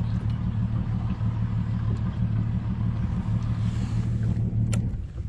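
Outboard boat motor idling steadily, then shut off about five seconds in, with a sharp click just before it stops.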